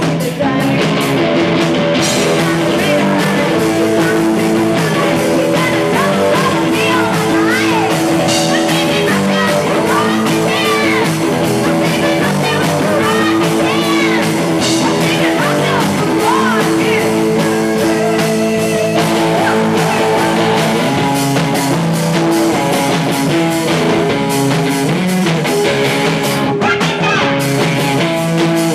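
Live rock band playing: electric guitars and a drum kit, with a singer over sustained, distorted-sounding chords.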